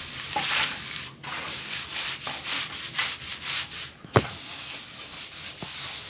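Mason's hand float scraping over wet concrete in repeated strokes as he smooths a fresh floor slab, with one sharp knock about four seconds in.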